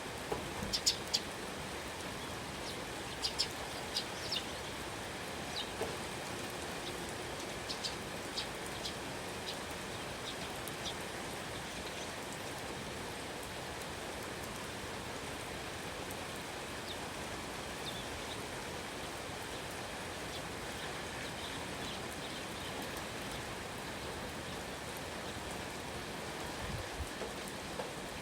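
Steady rain falling, with short high bird chirps scattered over the first eleven seconds and a few fainter ones later. A few soft low knocks come near the end.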